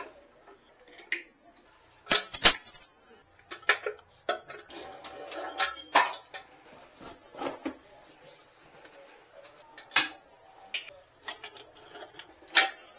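Metal plumbing fittings and hand tools clinking and knocking against a ceramic washbasin while its fittings are worked on by hand: an irregular string of sharp clinks and taps, the loudest a few seconds in and again about halfway through.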